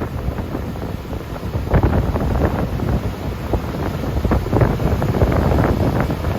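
Strong wind buffeting the microphone in uneven gusts, with typhoon-swell surf breaking behind it. The gusts swell about two seconds in and again around five seconds.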